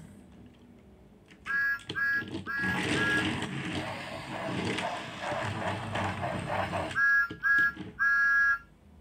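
Sound effects from the speaker of a Thomas & Friends motorized Talking Thomas toy engine. About a second and a half in come four short electronic whistle toots, then a few seconds of noisy train sounds, then three more whistle toots near the end, the last one held longer.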